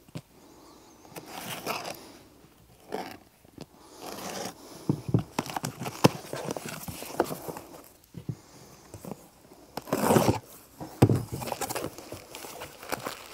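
A taped cardboard box being cut open and unpacked: irregular scraping and ripping of packing tape and cardboard with a few sharp clicks, the loudest rustling bursts near the end as the flaps are pulled open.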